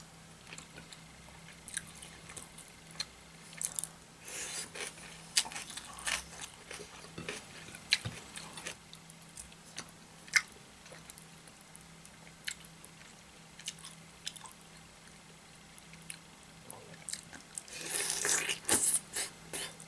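Close-miked eating: wet chewing and crunching with scattered sharp clicks and short crackles, growing denser and louder near the end, over a faint steady low hum.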